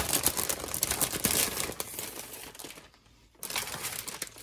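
Clear plastic bag crinkling and rustling as it is worked open around plastic model-kit sprues, loudest at first and dying away to a short pause about three seconds in, then softer rustling resumes.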